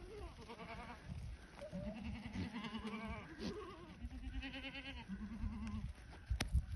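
A herd of goats bleating: several overlapping, quavering calls one after another. A sharp knock near the end.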